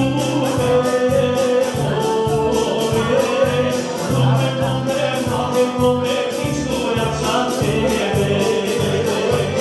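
Bulgarian folk horo dance music with singing over a steady, even bass beat.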